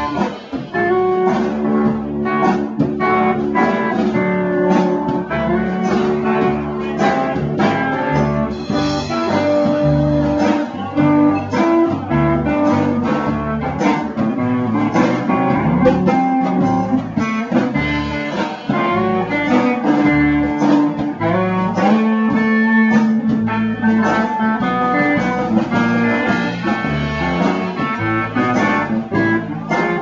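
Live band music led by guitar, a blues-style instrumental passage playing continuously.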